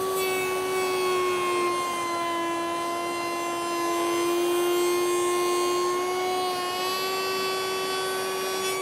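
Router mounted in a router table, spinning a tongue-and-groove bit at high speed with a steady, high whine while a wooden door rail is fed through to cut its tongue. The pitch sags slightly about a second or two in as the bit takes the load, and comes back up near the end.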